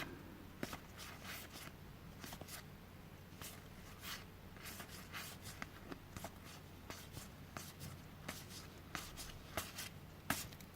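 Faint, irregular rustling and light clicks of game cards being handled, slid and flipped through one after another, over a low steady hum.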